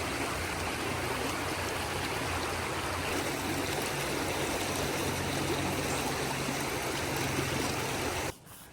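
A stream running, a steady rush of flowing water that cuts off suddenly near the end.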